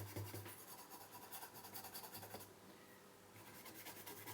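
Brush scrubbing a printed circuit board to wash off grime and flux: fast, faint scratchy strokes that ease off for about a second midway, then resume.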